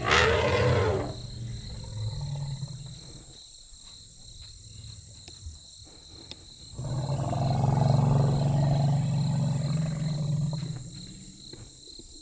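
Elephant calling: a sudden loud blast at the start that falls in pitch over about a second and trails off into a low rumble, then, about seven seconds in, a long, deep rumbling call lasting about four seconds.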